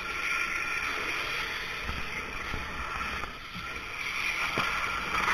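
High-pressure washer jet hissing and spattering against a cardboard juice carton, easing off briefly about midway, with a few soft knocks as the carton is struck.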